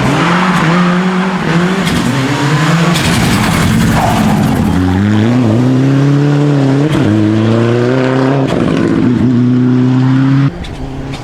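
Rally car engine at full throttle, its revs climbing and then dropping back several times, with a rushing noise underneath. About ten seconds in, the sound cuts off abruptly to a quieter level.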